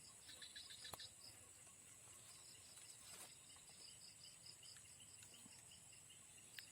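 Faint insect chorus: rhythmic chirps about five a second over a steady high buzz, with a single click about a second in.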